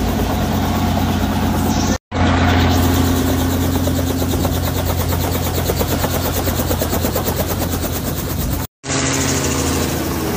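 Helicopter running, a steady engine hum with a fast, even rotor beat. The sound drops out briefly twice, about two seconds in and near the end.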